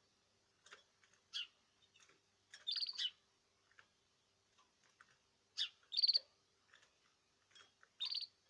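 Small caged birds chirping: short, sharp calls in quick clusters, the loudest about three seconds in, about six seconds in and near the end, with softer single chirps between. A faint steady hum sits underneath.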